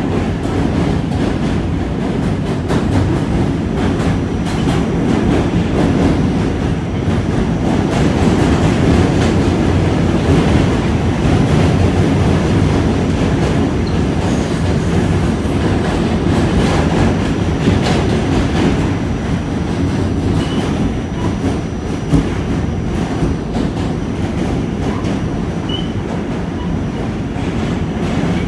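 New York City subway car running along the track, heard from on board: a steady rumble with wheels clicking over rail joints and one sharp knock near the end.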